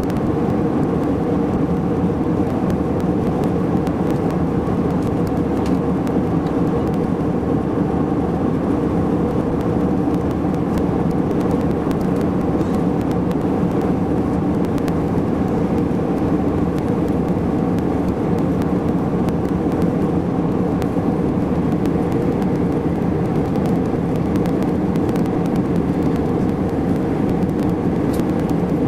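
Steady low drone of an airliner cabin in cruise flight: engine and airflow noise.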